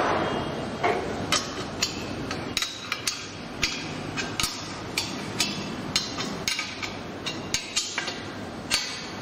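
A wrench tightening the nut on a steel traffic-light bracket clamped to a pole: a string of sharp metallic clicks, about two a second and unevenly spaced.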